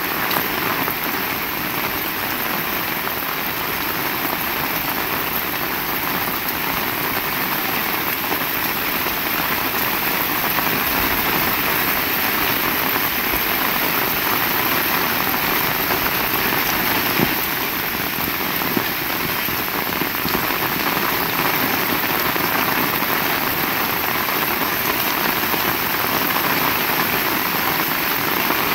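Heavy rain falling steadily, a dense even hiss of drops striking surfaces, with a couple of faint ticks in the second half.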